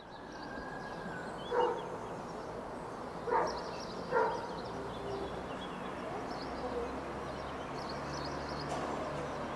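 A dog barks three times, once about a second and a half in and twice more a couple of seconds later, over steady outdoor background noise. A low hum comes in near the end.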